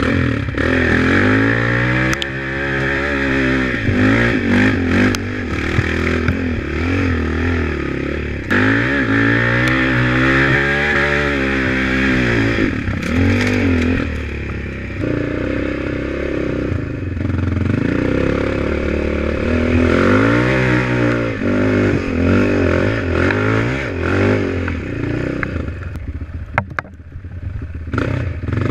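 Off-road vehicle engine revving up and easing off again and again while riding a rough trail, with rattles and knocks from the ride.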